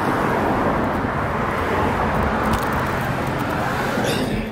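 Steady outdoor street noise: a continuous traffic hiss and rumble with no distinct events.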